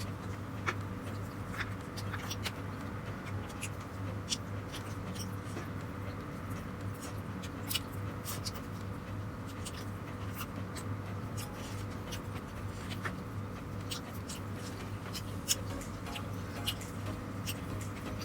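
Close-up eating sounds: scattered sharp mouth clicks and smacks of chewing, irregular through the stretch, over a steady low hum.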